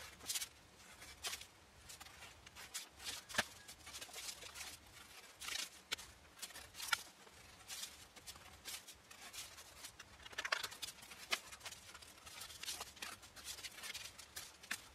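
A blade cutting out a piece of cardboard laid on a cardboard backing sheet: irregular short scratchy strokes and clicks, some louder than others.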